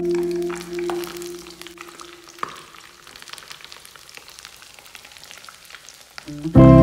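Breaded pork patties frying in shallow oil in a pan, with a steady crackle and sizzle of many small pops. Background music fades out over the first two seconds and comes back loud near the end.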